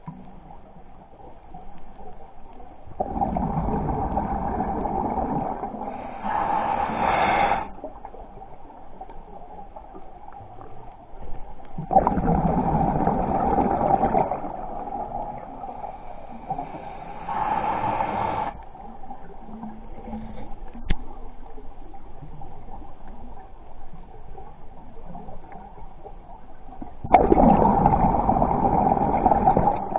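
A scuba diver breathing underwater through a regulator: bursts of exhaled bubbles and the hiss of each breath, about three breaths, over a faint steady whine, with one sharp click about two-thirds of the way through.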